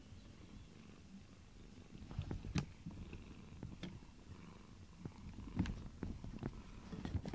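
Domestic cat purring close to the microphone while being stroked, a steady low pulsing rumble. Short sharp clicks and knocks come in from about two seconds in.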